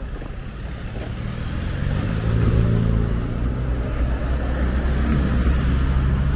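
Car engine running as a car drives close past on a city street, a low hum that grows louder about two seconds in and stays strong.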